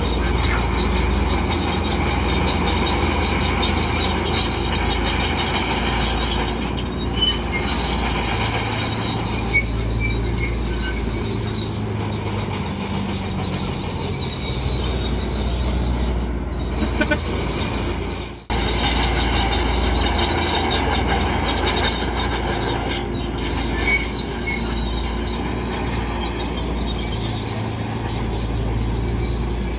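Heavy diesel earthmoving machinery working, its engine running under steady high-pitched metallic squealing and clanking. The sound breaks off for an instant about 18 seconds in, then carries on as before.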